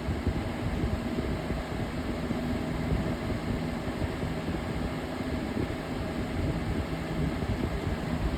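20-inch Aerospeed box fan running on high speed: a steady rush of air over a low motor hum. The fan is badly out of balance, enough that it may be sliding itself across the table.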